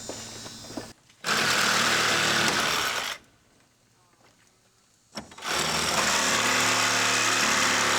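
A handheld power tool running in two bursts of a few seconds each, with a steady motor hum under a buzzing whir; it stops about three seconds in and starts again about two seconds later.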